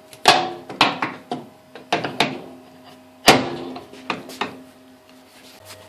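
Levers of a Logan lathe's quick-change gearbox being shifted to change the automatic feed rate: a string of sharp metallic clunks and clanks, the loudest about a third of a second and about three seconds in, some ringing briefly. A faint steady hum runs underneath.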